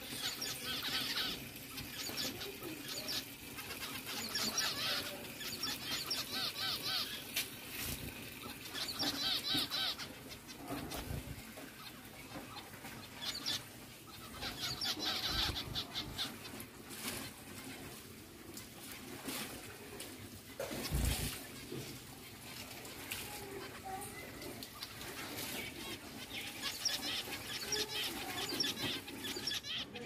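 Zebra finches calling and chattering: bursts of quick, repeated chirps every few seconds, with a few low thumps.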